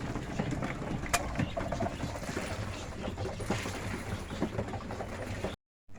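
Pigeons pecking at a light seed mix of sunflower, corn and oats: scattered small clicks over a low rumble, with one sharper click about a second in.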